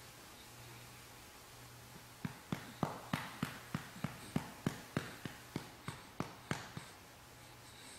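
A hand patting a baby's back to bring up a burp: about sixteen even pats, roughly three a second, starting about two seconds in and stopping near seven seconds, over a low steady hum.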